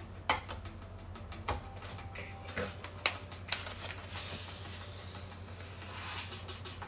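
Handling noises of a paper coffee bag being picked up: a few sharp taps and knocks, then the stiff kraft-paper bag crinkling and rustling for a couple of seconds.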